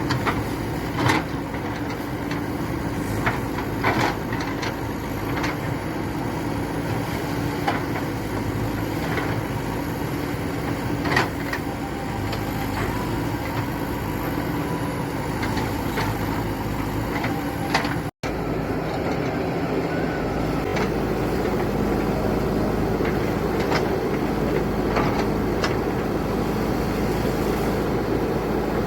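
JCB backhoe loader's diesel engine running steadily, with scattered sharp clanks and knocks through the first two-thirds. The sound drops out for an instant about two-thirds of the way in, then the engine runs on more evenly.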